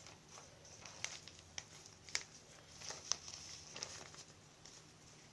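Faint handling of soft fabric travel storage bags: light rustling with a few small clicks and taps, the loudest a little after two seconds and about three seconds in.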